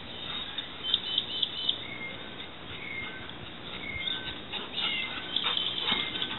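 Short high-pitched animal calls, each at one pitch, repeating about once a second, with a quick run of higher notes about a second in. Light knocks and scuffles come in near the end.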